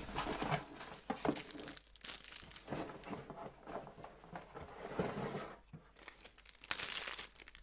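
Packaging material crinkling and being torn by hand in irregular bursts, with a longer, louder burst shortly before the end.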